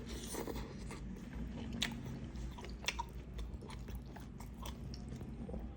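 A person chewing a mouthful of beef noodle soup close to the microphone, with wet mouth clicks and some crunching, over a steady low hum.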